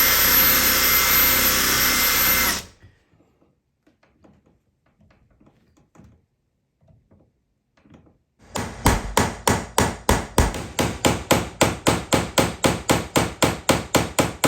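Cordless drill running steadily for about two and a half seconds, boring into a broken-off screw with the drill end of a screw extractor, then stopping suddenly. After a pause, rapid even hammer blows, about four or five a second, from about eight seconds in.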